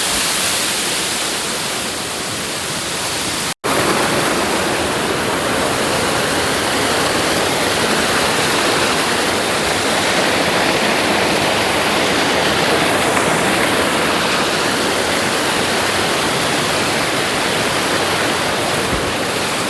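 Waterfall: the steady, loud rush of falling water close by. It cuts out for an instant about three and a half seconds in.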